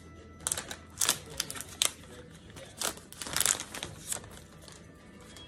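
Clear plastic wrapping being peeled off a phone box and crinkled in the hands: irregular sharp crackles, in a thicker cluster a little past the three-second mark.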